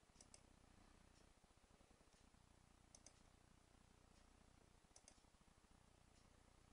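Near silence, broken by three faint double clicks of a computer mouse button, about two seconds apart, with fainter single ticks roughly once a second.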